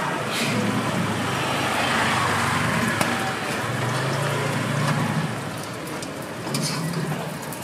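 Food sizzling in hot oil on a pan or griddle, a steady hiss, with a few sharp ticks and a low hum underneath.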